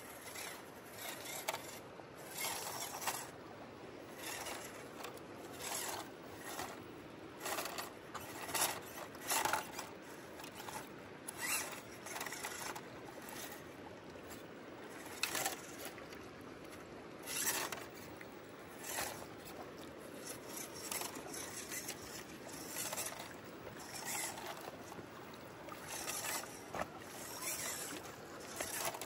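WPL C24 1/16-scale RC crawler pickup driving: its small electric motor and gearbox whir in short, uneven bursts of throttle.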